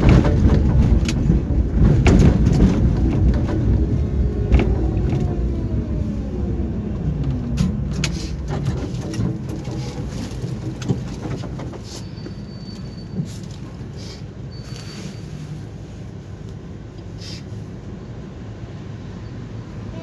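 Tram slowing down: wheels rumbling on the rails with the traction motor's whine falling in pitch, then a quieter steady hum as it comes to a stop, with a few short faint high beeps.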